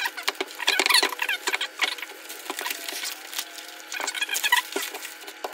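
Clear plastic bag crinkling and rustling as it is pulled open by hand: a run of irregular crackles.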